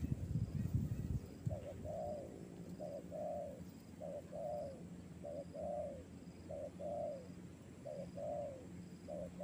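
Spotted dove cooing: a repeated two-part call, a short note followed by a longer arched note, about once a second, seven times, starting about a second and a half in. A low rumble sits under the first second.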